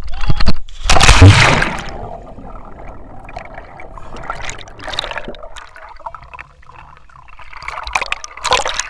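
A person jumping into a swimming pool: a loud splash about a second in, then the muffled gurgling and bubbling of water around the submerged camera, with another burst of splashing near the end.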